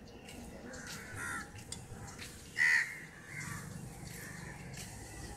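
Crows cawing: several short harsh calls, the loudest a single caw about two and a half seconds in.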